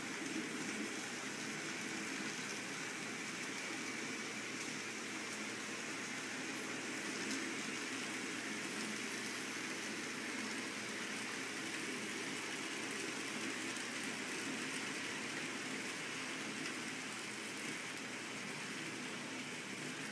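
N-scale model trains running around the layout: a steady whirring rush of small locomotive motors and wheels on the track.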